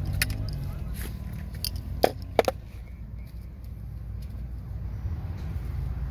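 A motorcycle helmet being handled: a few sharp clicks and knocks, the loudest two about two seconds in, over a steady low rumble.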